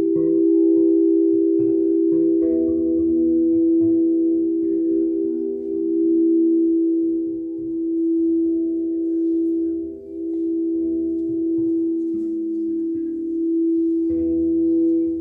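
Frosted quartz crystal singing bowls, played with a wand at the rim, ringing together in several sustained, overlapping tones. The tones slowly swell and fade, with a deeper dip about two-thirds of the way through.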